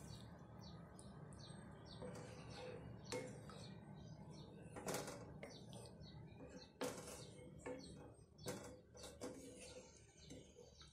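Wooden spatula stirring a thick coconut-milk curry in a pan: faint scrapes and sloshes, with a few louder strokes.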